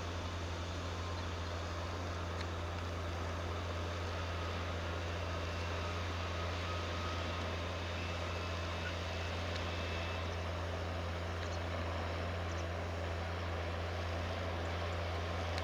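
Tractor engine running steadily with a low, even drone, as when working a field under load.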